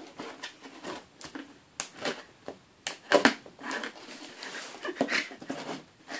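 Cardboard parcel heavily sealed with sellotape being worked open by hand: irregular scraping, tearing and crinkling of tape and cardboard, with scattered sharp clicks.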